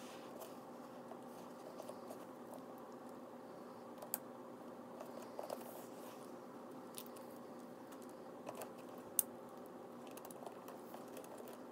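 Metal swivel clasps of a Coach Mollie 25 tote's leather crossbody strap clicking and lightly rattling as the strap is handled and clipped onto the bag's rings, with two sharper clicks about four seconds in and about nine seconds in. A faint steady hum lies underneath.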